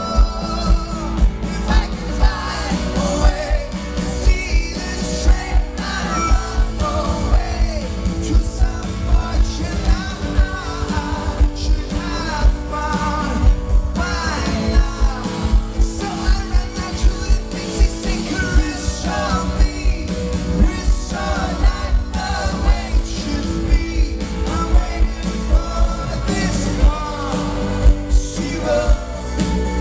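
Live rock band playing a song, with a lead singer over guitars and a steady kick-drum beat.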